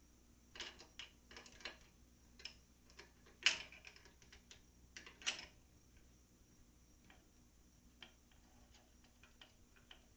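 Irregular metallic clicks and clinks of an Allen key and hand tools on a bolt head as a bolt is worked loose, with two louder clanks about three and a half and five seconds in, then sparser light ticks.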